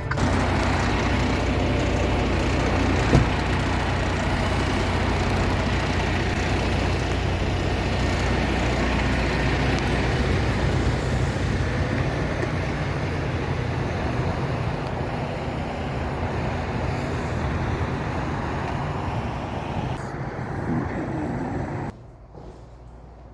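Semi-truck driving on the highway: steady engine drone with road noise and a faint knock about three seconds in. Near the end it drops suddenly to a much quieter background.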